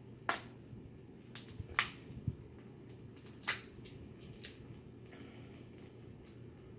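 Snow crab leg shells cracking and snapping as they are broken open by hand to get at the meat: about five sharp cracks spread over a few seconds.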